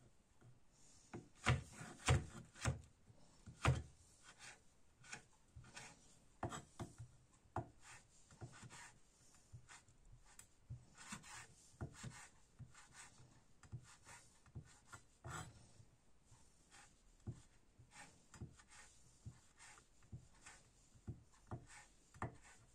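Kitchen knife chopping on a wooden cutting board: irregular taps of the blade on the wood, with a few louder knocks in the first four seconds, then a run of lighter, quicker cuts.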